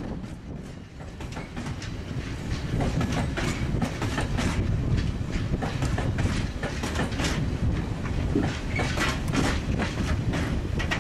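Freight train of open-top wagons rolling past, a low rumble with the wheels clicking over rail joints in a steady clickety-clack. It eases briefly about a second in, then stays loud.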